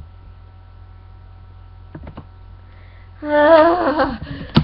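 A young woman's voice making a drawn-out, wavering vocal sound of about a second that falls in pitch, a little past three seconds in, over a steady electrical hum. A sharp click follows near the end.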